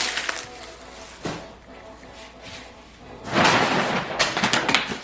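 Grocery bag rustling and crinkling as items are handled and pulled out, with a soft knock about a second in and louder, busier rustling from about three seconds in.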